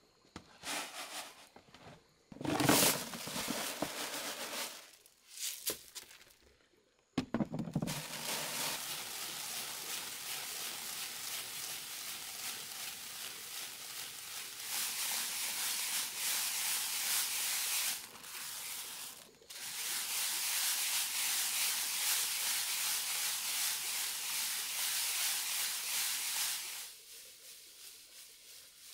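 Grains being scraped and pushed across a large woven bamboo tray with a flat paddle. A few short separate scrapes come first, then a steady grainy hiss that breaks off briefly once and stops shortly before the end.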